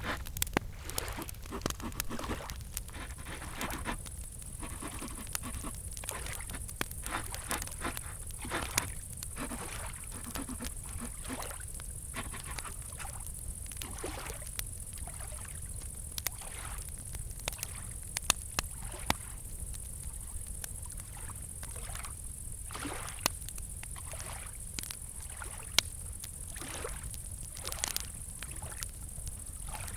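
Campfire crackling with irregular sharp pops, over a steady high-pitched chorus of crickets and gentle lapping lake water.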